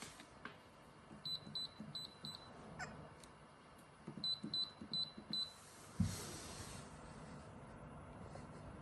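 Electronic beeper on the AAOBOSI portable fridge's control panel giving short, high beeps, four in quick succession, then four more a couple of seconds later, as its buttons are pressed. About six seconds in there is a thump followed by a short rush of noise.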